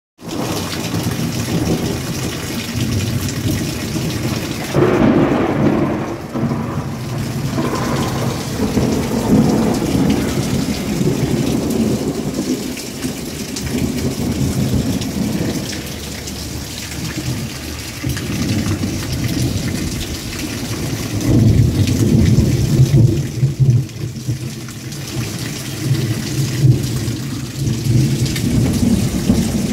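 Heavy rain pouring down in a storm, with gusting wind and a deep rumble that rises and falls. It swells about five seconds in and again from about twenty seconds on.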